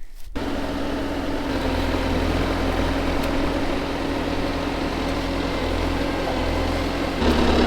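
Bobcat skid steer's diesel engine running steadily, getting louder about seven seconds in as it is throttled up.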